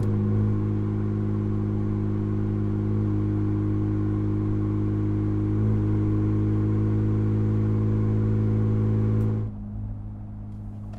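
Ford F-150's 2.7L twin-turbo EcoBoost V6 running through a Roush single side-exit exhaust with a straight-through muffler, heard at the tips while driving: a steady exhaust note at an even engine speed. About nine and a half seconds in it gives way to the quieter, lower sound of the same exhaust heard inside the cab.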